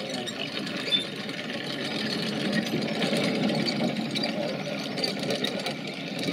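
Steady mechanical clatter of a small machine running.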